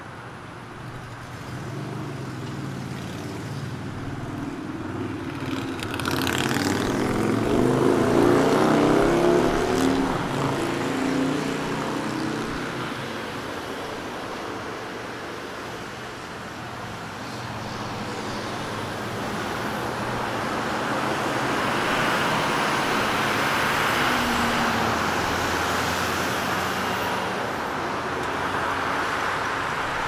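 Downtown city street traffic: a steady wash of car engines and tyre noise. A vehicle passes close and loud about a quarter of the way in, its engine pitch rising as it goes by, and the traffic swells again later on.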